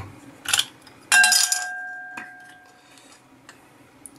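Hard parts clinking as a lamp is handled: a light tap, then a sharp clink whose ringing tone dies away over about a second and a half.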